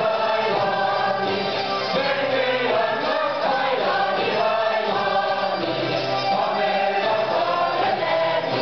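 Hungarian folk music played on citera (zithers) by a group, with voices singing along in a continuous melody.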